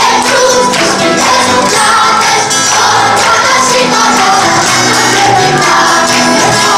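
A group of children singing together over music with a steady beat.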